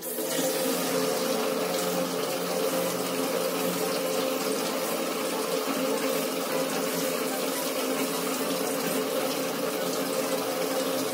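Water gushing steadily from a hose into a homemade water turbine model, starting suddenly, with a steady hum underneath.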